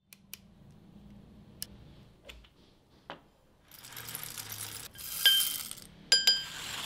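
Coffee beans poured into a 1Zpresso K-Ultra hand grinder, rattling down into the metal grinder, with a few light clicks before the pour. About two seconds in, the rattle gives way to two loud metal clinks, each with a short bright ring.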